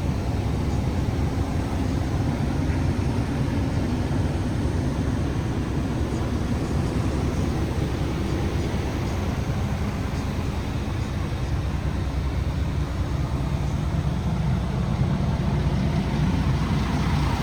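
Diesel engine of a MAN TGX 18.470 truck, a 12.4-litre inline-six, running steadily at a low idle.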